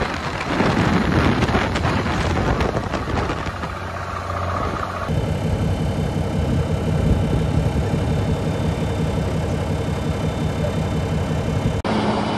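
Pickup truck towing a loaded flatbed trailer. For about five seconds there is rushing road noise at speed. After a cut, the engine drones steadily under load as it pulls up a dirt track. Just before the end there is a cut to another heavy truck engine running steadily.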